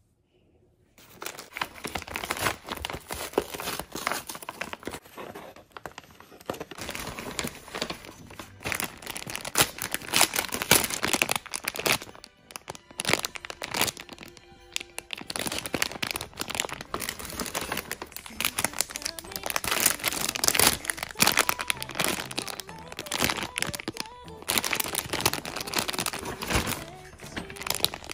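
Clear plastic retail bags of squishy toys crinkling and crackling as they are handled and squeezed, with background music.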